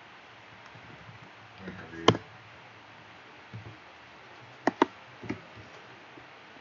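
Computer mouse clicking: one sharp click about two seconds in, then a quick double click and one more click a moment later, over faint steady background noise.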